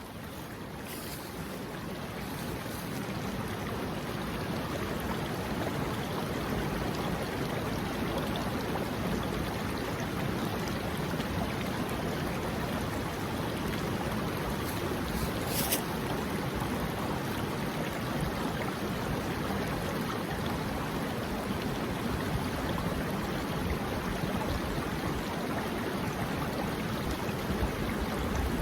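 A woodland brook rushing steadily over rocks, growing a little louder over the first few seconds. There is a single brief click about halfway through.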